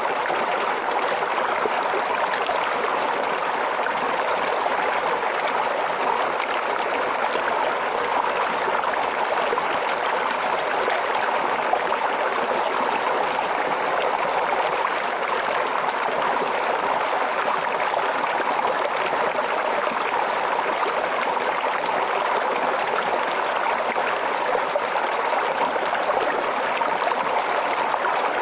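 Water babbling and trickling in a small stream, steady and unbroken.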